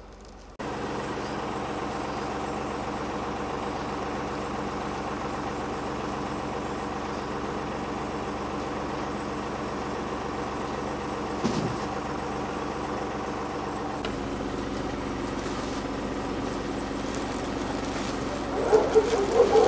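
Vehicle engine running steadily, with a single knock about eleven seconds in and a change in its low hum about fourteen seconds in.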